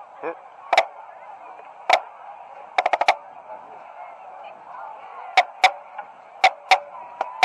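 Sharp drumstick clicks from a marching drumline: single clicks, a quick group of four and two pairs, over a steady murmur from the crowd in the stands.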